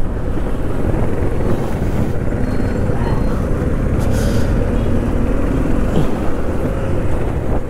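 Yamaha FZ16 motorcycle under way, its 153 cc single-cylinder engine running steadily beneath heavy wind rush on the mounted camera's microphone.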